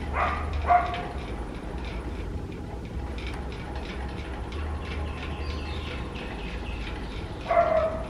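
A dog barks, twice in quick succession at the start and once near the end, over a steady low rumble.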